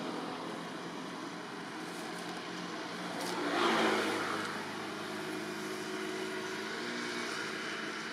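A motor vehicle passing: engine noise swells to its loudest about three and a half seconds in, then settles into a low hum that fades out near the end, over a steady background hiss.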